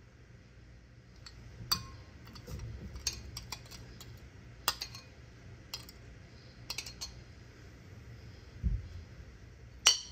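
A metal spoon stirring a soy-sauce mixture in a glass bowl, clinking and tapping irregularly against the glass, with a sharper clink near the end and a soft low thump just before it.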